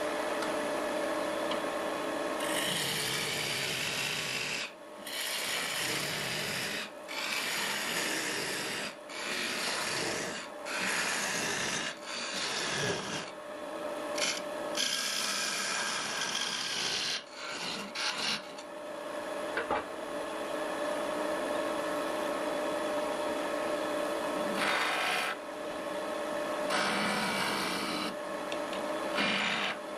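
A turning chisel cutting a spinning wooden blank on a wood lathe: a steady scraping hiss of steel on wood. It breaks off in short gaps again and again as the tool is lifted away, over a steady hum from the running lathe.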